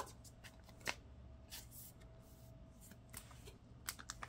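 Faint rustling and crinkling of a photocard being slid into a clear plastic binder-page sleeve, with a few soft taps and crackles of the plastic.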